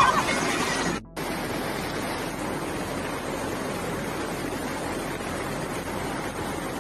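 Steady rushing of a fast-flowing flood torrent, setting in about a second in after a brief break in the sound.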